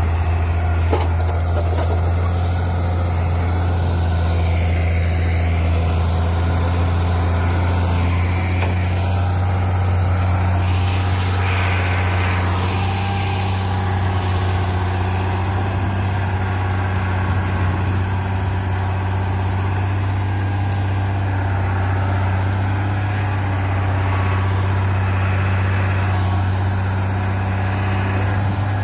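Ford TW-20 tractor's six-cylinder diesel engine running steadily under load as it pulls a five-shank subsoiler through hard, compacted ground.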